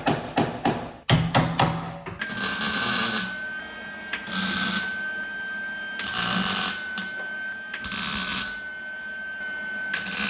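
A hammer striking sheet steel several times a second, then a welder laying tack welds on a patch panel in a vehicle floor: five short crackling bursts of under a second each, over a steady high whine.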